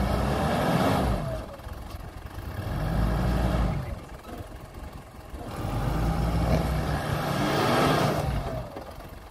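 Mitsubishi Pajero's engine revving up and falling back in three surges as the loaded 4x4 with its trailer strains to drive free after getting stuck against a fence post.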